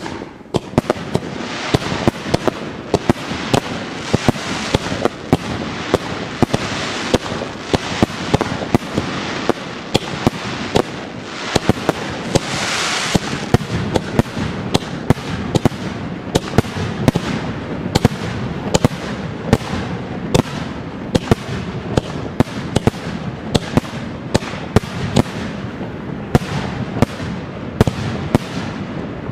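Fireworks display: a rapid, continuous run of sharp cracks and bangs from ground-fired comets and aerial shells, with a louder burst of hissing crackle about twelve seconds in.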